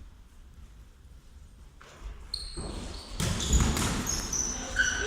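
Mini-football being played on an indoor hall floor: the ball thumping and bouncing amid players' movement. It starts about two seconds in, after a quieter moment.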